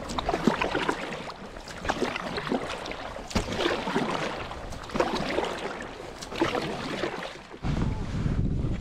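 Paddle strokes in lake water, a swish and splash about every one and a half seconds. Near the end it changes suddenly to a steady low rumble.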